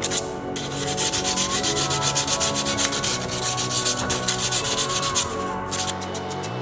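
Sandpaper rubbing on a scale model car's body in rapid back-and-forth strokes. The strokes stop about five seconds in.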